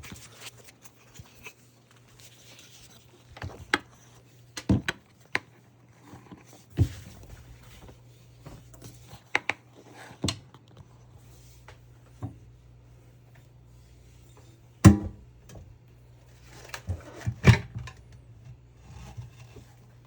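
Irregular plastic clicks and knocks from the Riccar R70 floor washer's dirty water tank and filter being handled and taken apart, the sharpest about fifteen seconds in. A low steady hum runs underneath.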